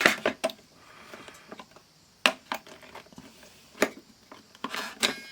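Scattered light clicks and taps from handling an opened analog multimeter: a few at the start, single ones about two and four seconds in, and a short cluster near the end.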